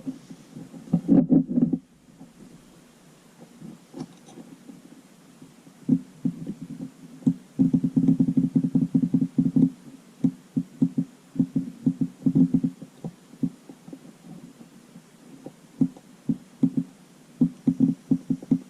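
Irregular low knocks and rubbing from handling wire ends, a 9-volt battery and a diaphragm water pump as the wires are touched to the battery terminals again and again; the pump motor does not start, so there is no whirring, only the handling noise, coming in clusters with quieter gaps.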